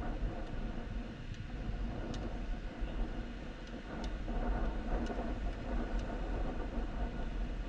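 A motor vehicle running steadily, with heavy low rumble on the microphone and a few faint ticks.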